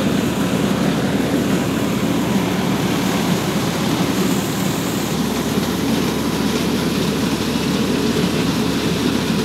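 Purvanchal mini rice mill running steadily, driven by a Powertrac Euro 50 tractor's diesel engine: an even, continuous mechanical noise of engine, belts and milling machinery.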